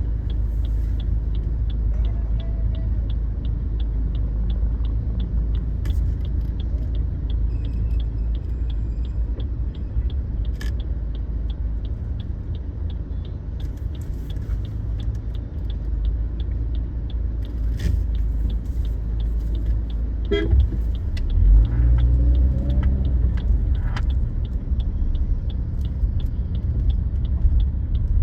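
Car driving in traffic: steady low road and engine rumble with an even, fast light ticking throughout, and a short car horn toot about twenty seconds in.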